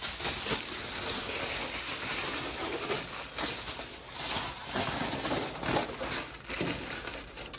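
Aluminum foil crinkling and rustling as it is crumpled and pressed by hand around a gas griddle's burner tube, with many small crackles.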